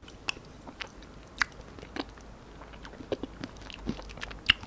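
Close-miked chewing of a mouthful of ice cream studded with chocolate-coated peanuts, with many small scattered crunches and mouth clicks.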